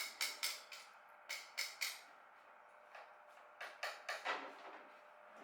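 Short, sharp scraping strokes in three quick groups of three to five: hands working on parts and tools.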